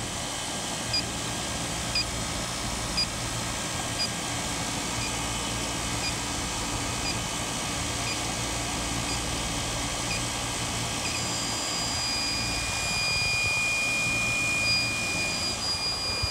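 Inficon TEK-Mate electronic refrigerant leak detector beeping about once a second. About eleven seconds in it goes into a continuous high alarm tone as it picks up refrigerant leaking at the condenser coil's tube sheet. Underneath is the steady hum of running air-conditioning units.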